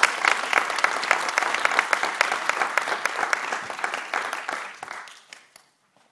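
Audience applauding: dense clapping that thins and fades out about five seconds in.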